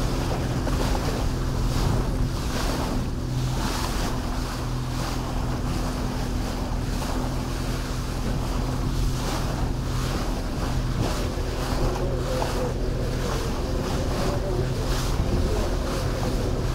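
Orkney Fastliner motorboat running at speed: a steady engine drone under the rush of water and spray along the hull, with wind buffeting the microphone in gusts.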